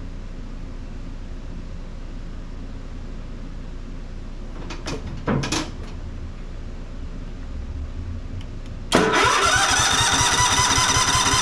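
Electric starter cranking the Cub Cadet's 679cc EFI engine, beginning suddenly about nine seconds in with fast, even chugging and a whine that rises and settles. The engine turns over but never fires, because the ignition is giving no spark. A couple of short knocks come about five seconds in.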